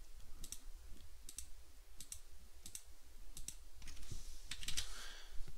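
Faint, irregular clicks of a computer mouse and keyboard, two or three a second, over a low steady hum.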